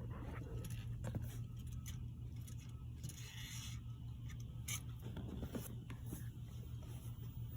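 Faint scraping and light clicking handling noises over a steady low hum, with a short hiss about three seconds in.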